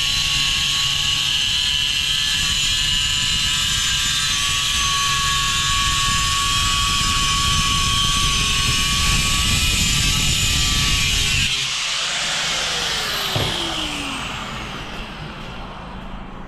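Electric tile-cutting power tool running with a steady high-pitched whine. About twelve seconds in it is switched off and its motor winds down with a falling whine.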